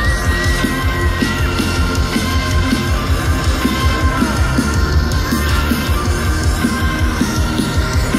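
Live rock band playing loudly through a concert PA: pounding drums and distorted guitars, with a high sliding tone that rises near the start and falls away about four seconds in.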